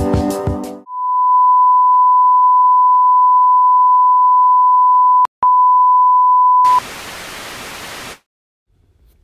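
The last notes of electronic news-intro music, then a loud, steady high TV test-card beep lasting about six seconds, broken once by a click and a short gap. It gives way to TV static hiss for about a second and a half, which cuts off suddenly.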